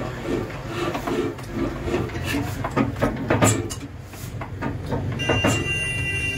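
Old Ruston diesel engine being turned over by hand on its large flywheel without firing, giving irregular metal clanks and knocks over a low rumble.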